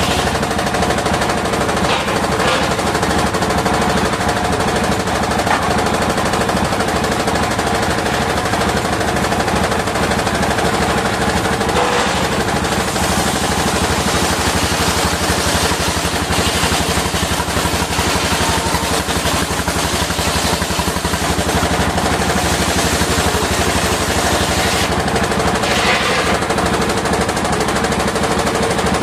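Engine-driven circular sawmill running steadily while sawing waru wood, with the engine's rapid, even beat under the noise of the blade.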